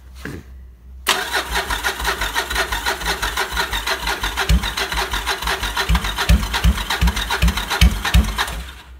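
Cold motorcycle engine being cranked on its electric starter, without choke, for about eight seconds. Uneven low thumps come in the second half as it tries to fire, but it does not catch, and the cranking stops near the end.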